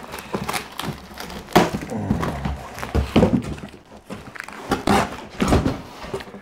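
Cardboard box being cut open and handled: scissors slicing through packing tape, the cardboard scraping and tearing, with irregular knocks as the box is pushed on the wooden floor.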